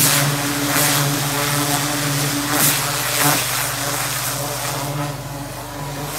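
Pressure washer running, its wand blasting a high-pressure water jet into loose soil to tear out weeds: a steady motor hum under a loud hissing spray, with a few short louder flares as the jet digs into the dirt.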